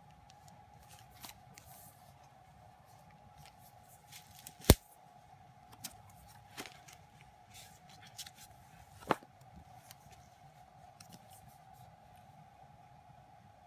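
Hands handling a paper photobook album and photocards: soft paper and card handling with a few sharp clicks, the loudest about four and a half seconds in and another about nine seconds in, over a faint steady hum.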